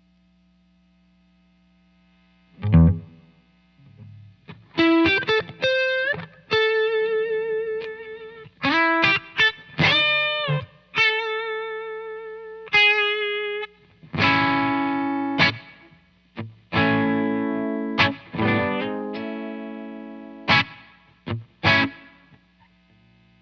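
Electric guitar played through a Joyo R-02 Taichi overdrive pedal, a Zen Drive clone meant for Dumble-style tone. After a couple of seconds of amp hum, a low note is struck. A lead line of single notes with string bends and vibrato follows, then overdriven chords, and the playing stops just before the end.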